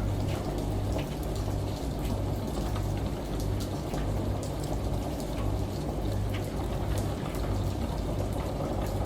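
Rain pattering and water running, layered over a washing machine's low hum that swells and fades in short pulses.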